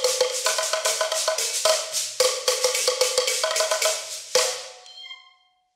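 Fast percussion rhythm played with sticks, dense strokes over two ringing pitched notes, ending with a last loud stroke about four and a half seconds in that rings out and fades.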